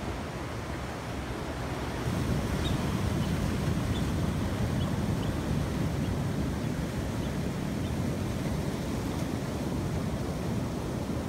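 Ocean surf washing onto a beach, a steady wash of noise that swells about two seconds in.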